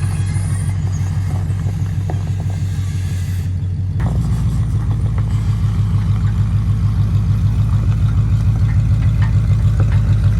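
Vehicle engine running at low speed with a steady, evenly beating low pulse. About four seconds in it steps up a little louder and then builds slowly toward the end, as if under more load.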